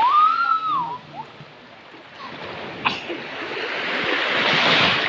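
Water splashing around children wading in shallow sea water, building up over the last two seconds, with a sharp click about three seconds in. At the very start a child gives one short high-pitched call whose pitch rises and falls.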